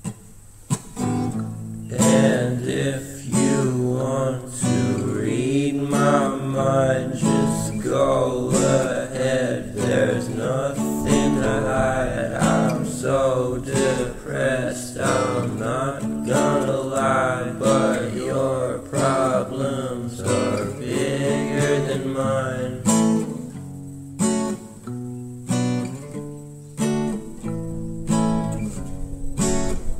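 Background song with strummed acoustic guitar.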